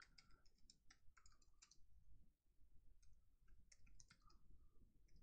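Faint typing on a computer keyboard: quick runs of key clicks in two spells, with a pause of about a second between them.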